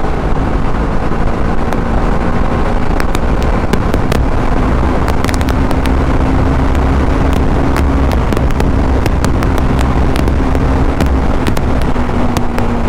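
Wind rushing over a helmet-mounted microphone over the steady drone of a TVS Apache RR 310's single-cylinder engine cruising at highway speed, with scattered sharp crackles.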